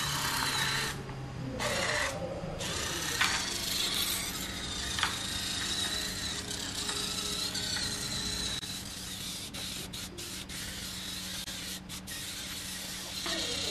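Small two-wheeled robot driven by continuous-rotation (360°) micro servos, whirring as it drives along. A thin high whine rises and falls with the servos' speed.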